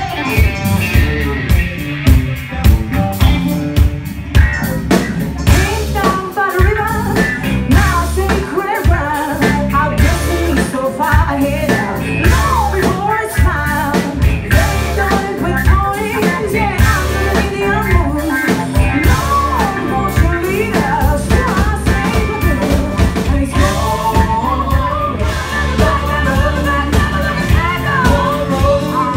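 Live blues-rock band playing: electric guitar, bass guitar and drum kit, with a voice singing over them.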